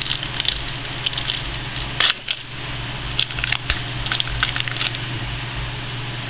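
Football trading cards being handled and flipped through: scattered light clicks and rustles of card stock, with a louder snap about two seconds in, over a steady low hum.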